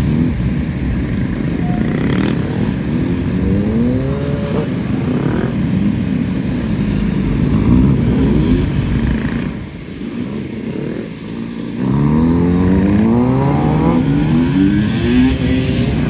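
Motorcycle engine repeatedly accelerating and easing off, its pitch climbing in a series of short rises and dropping back. It goes quieter for a couple of seconds past the middle, then picks up again.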